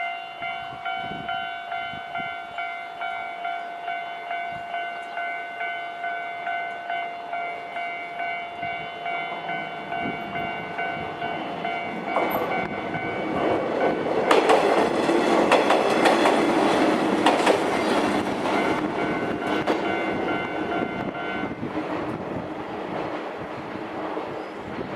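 A Japanese level-crossing warning bell rings steadily, about one and a half rings a second. About halfway through, a JR Kisei Line train passes over the crossing: its rumble and wheel clicks grow loud and drown out the bell. The bell stops a few seconds before the end while the train noise fades away.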